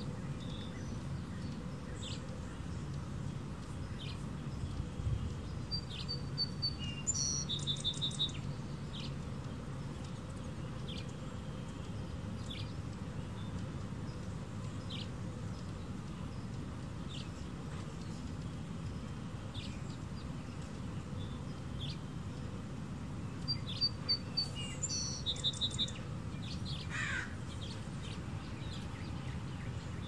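Hummingbirds chipping around nectar feeders: short high chips every second or two, with a quick chattering burst about a quarter of the way in and again near the end. A steady low rumble of background noise lies underneath.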